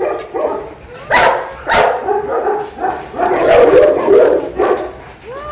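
Dogs barking loudly, a string of separate barks from about a second in, then a quicker run of barks a little past the middle.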